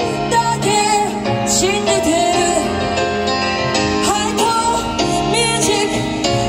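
Live pop music: female voices singing a melodic line over a loud amplified backing track.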